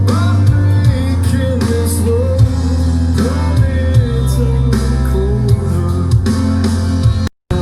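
Rock song with a sung vocal, guitar and drums playing loud through a PS TT-12M 12-inch top speaker and PS SUB905s 15-inch subwoofer, with heavy bass. The sound cuts out for a moment near the end.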